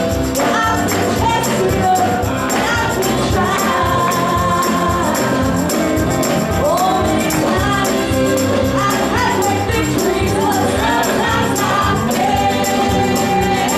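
Gospel music: singing voices over a band with a tambourine keeping a steady beat.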